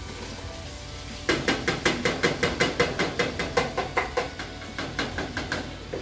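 A metal spoon knocking quickly against a cooking pot, about five sharp ringing knocks a second, starting about a second in and stopping shortly before the end.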